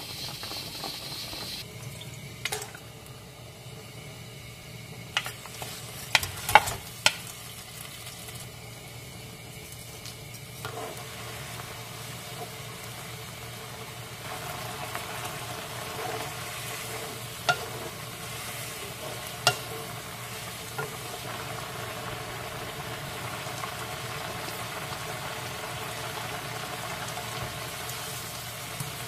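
Home stovetop cooking: scallops boiling in a foaming pan of water, then a spicy red stew bubbling in a wok while a wooden spatula stirs it. A few sharp knocks of the utensil against the pan stand out, a cluster in the first seconds and two more about two-thirds of the way through.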